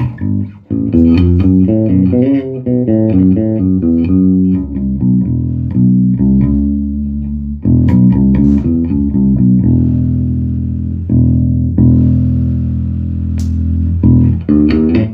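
Electric bass guitar played through a Fender Bassman 500 bass amplifier: runs of plucked notes, a few long held notes in the middle, then faster notes again near the end. This is a sound test after the amp was repaired for sound randomly cutting out.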